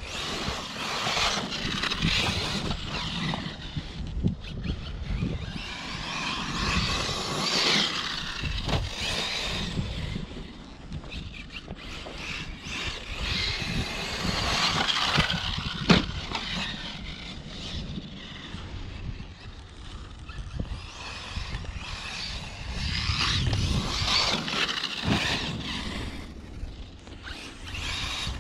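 Arrma Mojave RC truck's electric motor whining up and down as it is throttled on and off across grass, with tyre and scrape noise and a low rumble underneath. A single sharp knock about halfway through.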